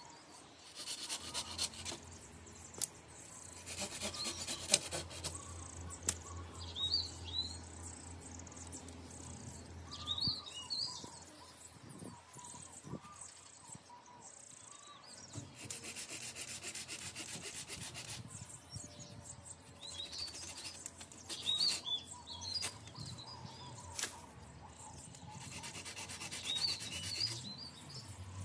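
Hand pruning saw cutting through magnolia branches in several spells of quick back-and-forth strokes. Small birds chirp briefly between the spells.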